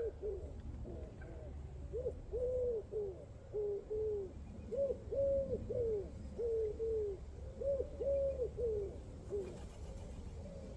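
A pigeon cooing: soft, low notes in repeated phrases of about five, each phrase with a longer, stressed second note, three phrases in a row.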